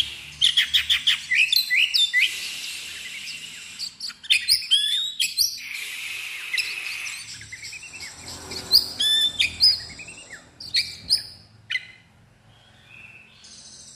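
Oriental magpie-robin singing in loud, varied bursts of rapid chirps, whistles and trills separated by short pauses. The song thins to a few faint notes over the last two seconds.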